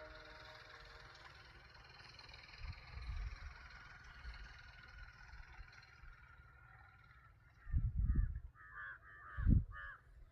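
A crow cawing, a quick series of short calls near the end, over a faint outdoor background with a few low thumps.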